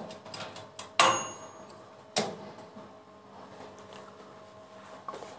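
Ceramic kitchen bowls clinking as they are handled on the counter: two sharp clinks a little over a second apart, the first with a brief high ring, then faint room tone.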